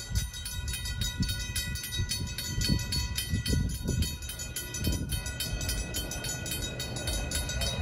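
Railroad grade-crossing warning bell ringing with rapid, evenly repeated strokes and several steady ringing tones, sounding while the crossing's lights flash and its gates are down. Low rumbling swells come and go midway.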